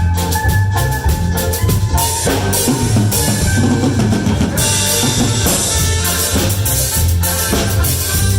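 Cumbia band music with drums to the fore over a steady bass line. A busier run of percussion comes around the middle.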